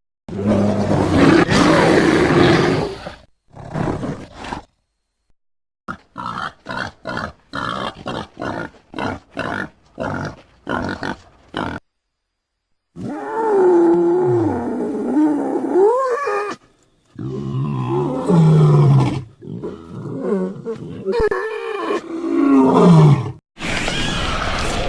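Scutosaurus creature sound effects. A long roar is followed by a run of short calls, about two a second, then several drawn-out calls that slide up and down in pitch. A steady rushing sound starts near the end.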